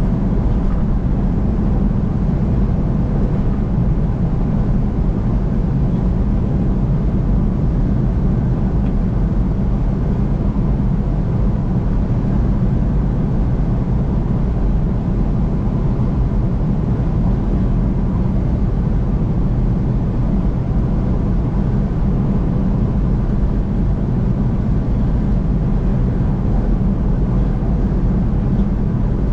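Steady road noise of a vehicle driving along an interstate highway: an even tyre-and-engine drone, deepest and strongest low down, with no changes.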